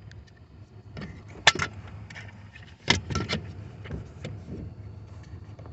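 Plastic clicks and small clatters of a power window switch and its retaining clip being handled and pried, with two sharp clicks about a second and a half and three seconds in, over a steady low hum.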